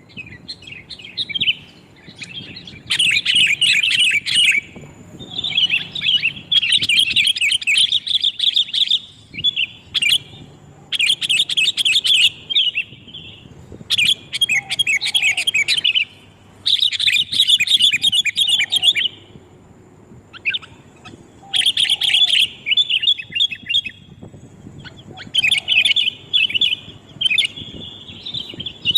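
Sooty-headed bulbuls (kutilang) chattering noisily as a group, in bouts of rapid, overlapping chirps a second or two long with short pauses between. This is a lure call (pikat) used to draw wild bulbuls in.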